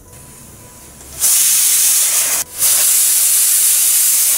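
Pressure cooker whistling: steam jets out of the weight valve with a loud hiss from about a second in, breaking off briefly once, as the cooker vents at full pressure while cooking chickpeas.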